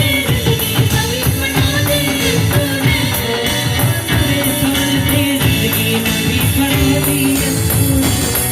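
Live church worship-band music: an instrumental passage with held notes over a steady percussion beat.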